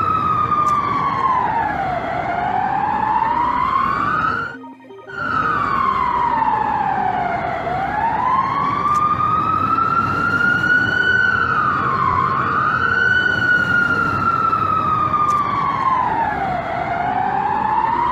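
Emergency alert alarm siren wailing, its pitch sliding slowly down and back up every few seconds over a steady low noise. It cuts out for about half a second around four and a half seconds in, then resumes.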